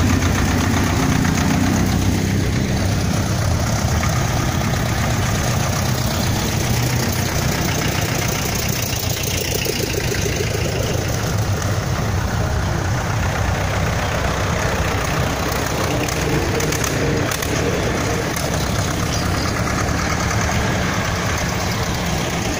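Vintage farm tractors driving slowly past one after another, their diesel engines running with a knocking beat. The loudest is a green Ursus C-330 two-cylinder diesel passing close at the start.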